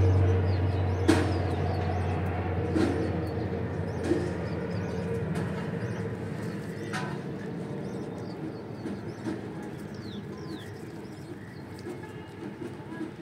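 Budgerigars in a nest box, an adult bending over its chick to feed it: faint short chirps and scattered clicks. A low hum fades away in the first couple of seconds.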